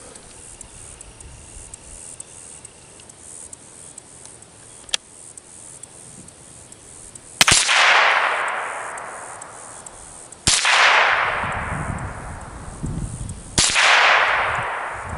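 Three .22 LR shots from a Ruger 10/22 semi-automatic rifle, fired about three seconds apart, each report echoing and fading over about two seconds. A faint click comes about five seconds in.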